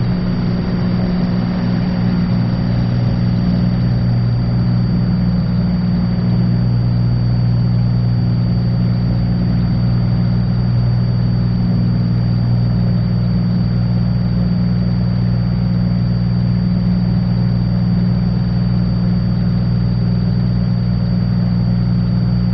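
Cessna 182 Skylane's piston engine and propeller running steadily at full takeoff power during the takeoff and initial climb, a constant deep drone with a thin steady high whine above it.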